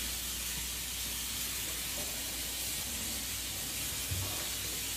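Steady sizzle of a burger patty frying in a pan, with a kitchen tap running into the sink as a tomato is rinsed.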